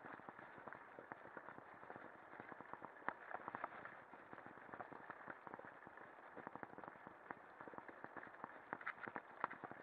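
Lapierre mountain bike riding over a leaf-covered forest trail: a dense, irregular clatter of tyre noise and frame and drivetrain rattle, with sharper knocks over bumps about three seconds in and near the end.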